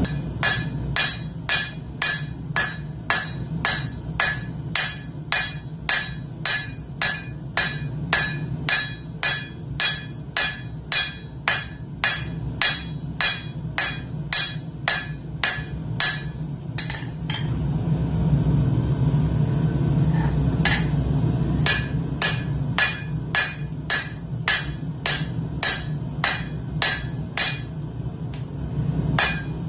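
Hand hammer striking hot steel on an anvil at a steady pace of about two blows a second, each blow ringing. The hammering stops for about four seconds past the middle and then resumes. A steady low roar, the propane forge burner, runs underneath.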